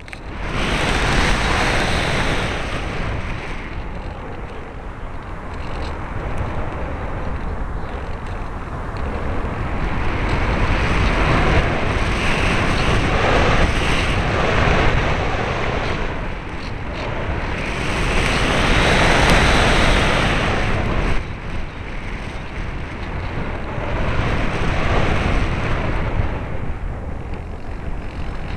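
Wind buffeting a small onboard camera's microphone: a steady rushing noise that swells and eases in gusts every few seconds, with no motor tone.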